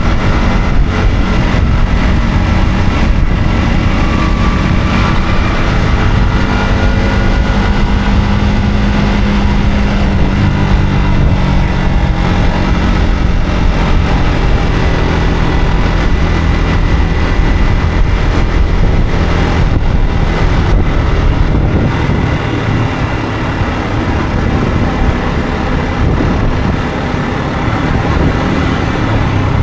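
Yamaha MT-15's single-cylinder 155 cc engine running under way, its pitch gliding up and down with the throttle, over road noise. It eases off and quietens slightly for a few seconds past the middle, then picks up again near the end.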